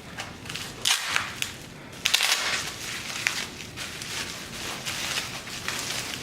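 Packing wrapping being crinkled and torn open by hand while wrapped parts are unpacked, with a few sharp clicks and knocks about a second in, then a longer stretch of crinkling from about two seconds in.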